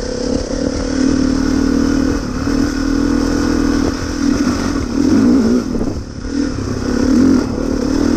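Dirt bike engine running under way on a trail ride, its pitch rising and falling as the rider works the throttle, with short lulls about four and six seconds in.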